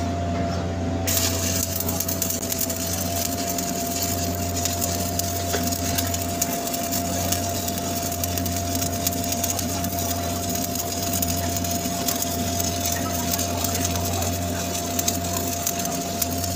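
Shielded metal arc (stick) welding on 10-inch carbon steel pipe, running the capping pass: the arc strikes about a second in, then crackles and sizzles steadily. Under it runs a steady low hum.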